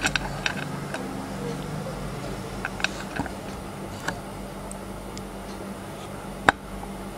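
Scattered light clicks and taps, with one sharper, louder click about six and a half seconds in, over a steady low hum.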